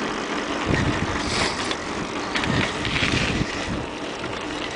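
Wind buffeting the microphone on a moving bicycle: a steady rushing noise with a few low gusts.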